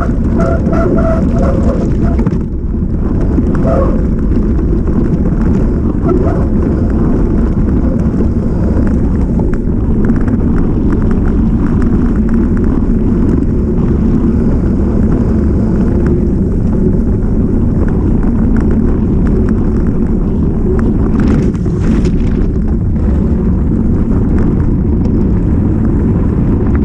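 Mountain bike descending a rough trail: steady, loud low wind rumble on the camera microphone with tyre noise and the rattle of the bike over the ground. A brief high tone sounds in the first two seconds.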